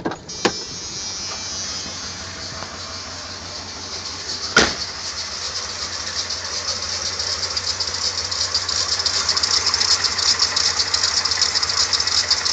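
Dodge truck engine with new fuel injectors, running steadily at idle with a fast mechanical clatter and ticking, growing gradually louder. Two sharp clicks stand out, one near the start and one about four and a half seconds in.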